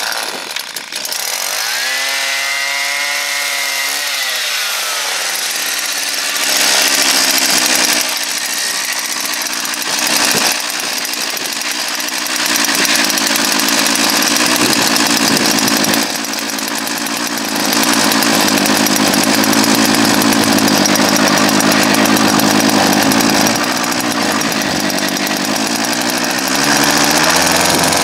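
Small handheld two-stroke engine catching after a pull on its starter cord, running briefly with its pitch rising and falling, then revved hard in several longer bursts with easier running between them.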